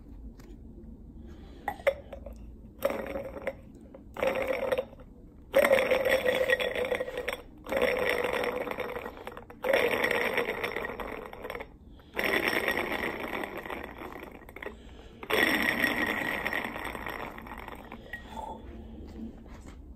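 Clear-ice diamond worked against the rim of a double-walled glass tumbler: ice on glass sounding out in a few short strokes, then five longer strokes of about two seconds each that start sharply and fade.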